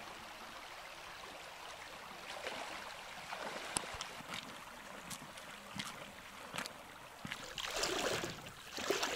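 Shallow taiga river running steadily over stones, with scattered small clicks and knocks over the second half and a louder rush of noise near the end.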